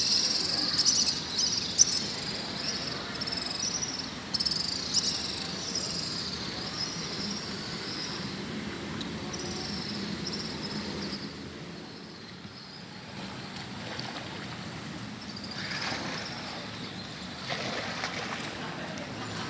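High-pitched insect chirping in a repeating pattern that fades out about halfway through. Near the end come splashes of water, fitting a kayak paddle dipping into the river.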